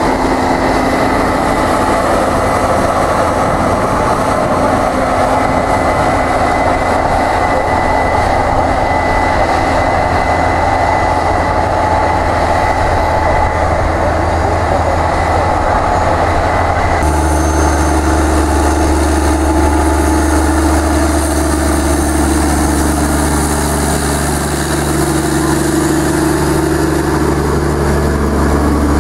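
Case IH Quadtrac tracked tractors working under load, pulling cultivators through stubble: a dense, steady run of engine and track noise with a thin high whine. About two-thirds of the way through the sound cuts to a closer, deeper steady engine hum.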